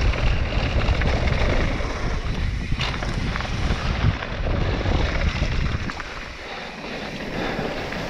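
Mountain bike descending fast on a dry, loose dirt-and-gravel trail: tyres crunching and sliding through dust and stones, with scattered knocks and rattles over bumps, under steady wind buffeting on the rider-worn camera's microphone.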